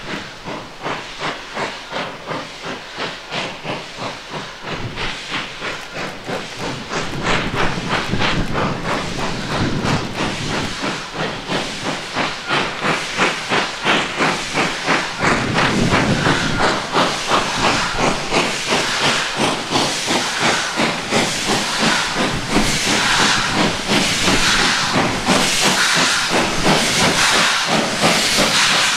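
Ex-Deutsche Reichsbahn class 52 2-10-0 steam locomotive 56 548, built by Floridsdorf in 1943, working a train with a regular exhaust beat and hissing steam, growing louder as it draws near.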